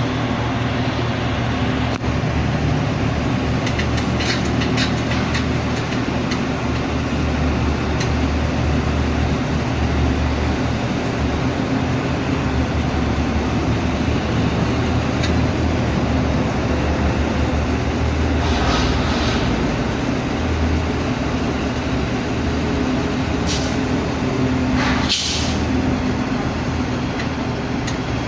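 Heavy diesel construction machinery running steadily, with a deep engine drone and clattering. Short hissing bursts come about two-thirds of the way through and again near the end.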